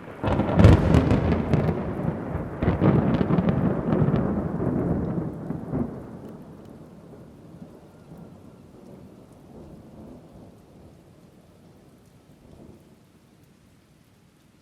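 Thunderclap bursting in suddenly, a loud crackling crash for about five seconds, then a rolling rumble that slowly fades away, with rain falling underneath.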